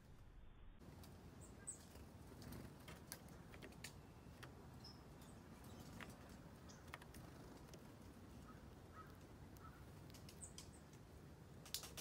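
Near silence: a quiet outdoor background with scattered faint clicks and a couple of brief, high bird chirps.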